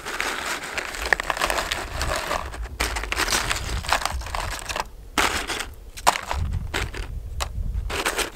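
Tortilla chips rustling and crackling as a hand lifts them out of a plastic container and lays them in a plastic tub, a dense run of crisp clicks and crackles.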